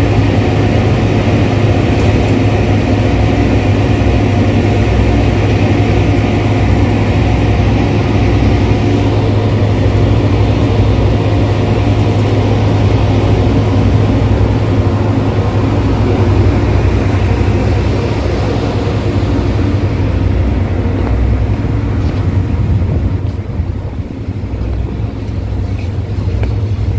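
Tugboat's diesel machinery running with a steady low hum, easing slightly near the end.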